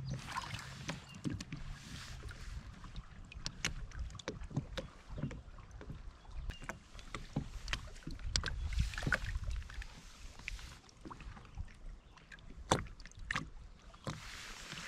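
Lake water lapping and dripping against the side of a boat, with scattered small splashes and light ticks, as a hand holds a bass in the water. A low rumble swells about eight seconds in.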